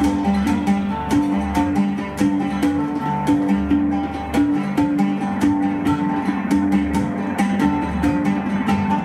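Live instrumental music led by a plucked oud, with keyboards: a fast run of sharply plucked notes over held tones that shift in pitch.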